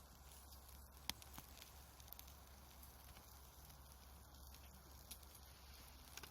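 Faint crackling of a wood campfire, with scattered small pops and one sharper pop about a second in.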